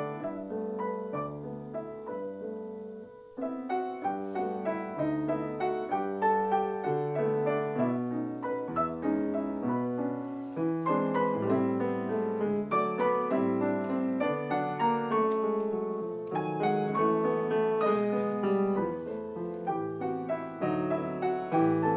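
Grand piano played four hands as a piano duet, a steady stream of notes over a moving bass line. About three seconds in the sound dies away briefly before the playing starts again.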